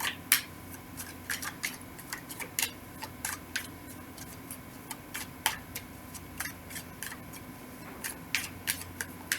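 A deck of tarot cards being shuffled by hand: irregular crisp snaps and clicks of card edges, a few a second.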